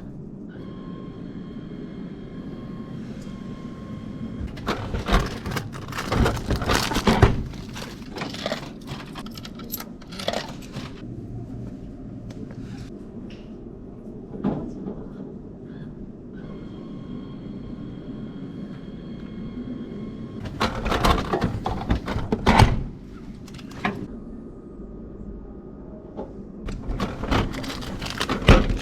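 Japanese food vending machine dispensing packaged items three times: each time a steady humming tone for a few seconds, then loud clunks and rattling as the item drops and is taken from the tray.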